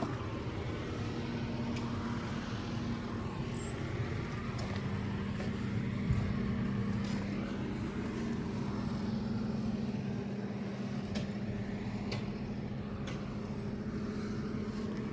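An engine running steadily at idle, an even low hum, with a few faint light clicks in the second half.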